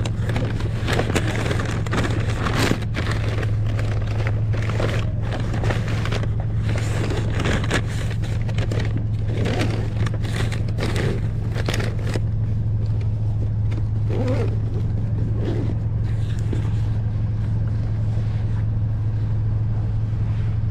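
Engine idling steadily, with crackling and scraping handling noises through roughly the first twelve seconds that then die away.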